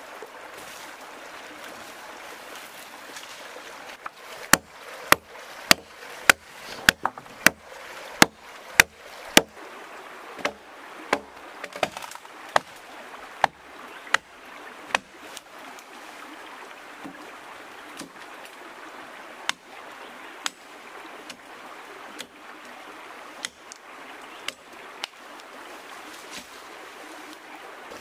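A blade chopping wood in a quick run of sharp strokes, about one every half second, that slows and thins out to a few scattered blows. A small stream runs steadily underneath.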